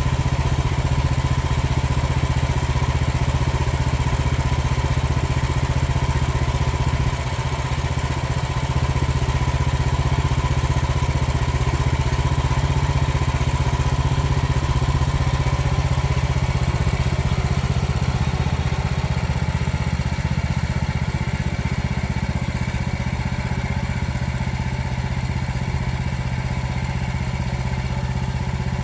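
Frontier portable bandsaw sawmill's gas engine running steadily under a long cut, with a higher steady tone that fades out about halfway through.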